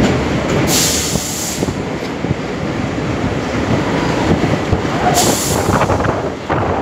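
Train running on the rails, a steady dense rumble of wheels on track, with two brief bursts of hiss, about a second in and again about five seconds in.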